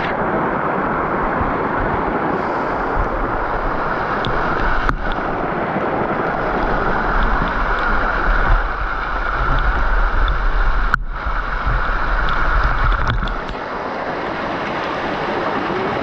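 Waterfall water pouring and splashing into a pool, a steady rush heard close to the falling water. A low rumble joins in about three seconds in and stops shortly before the end.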